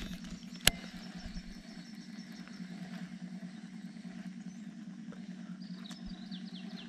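Steady low hum of the boat's motor, with a single sharp click a little under a second in.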